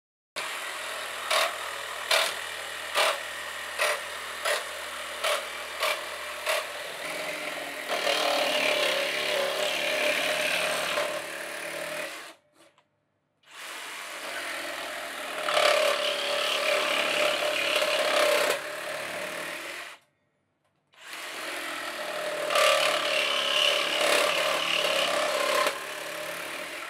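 Reciprocating saw with a carbide-tipped Bosch EXPERT 'Wood with Metal' blade cutting through a timber post with a steel screw embedded in it. It runs three times, stopping briefly twice. Through the first several seconds, sharp knocks repeat about every three-quarters of a second.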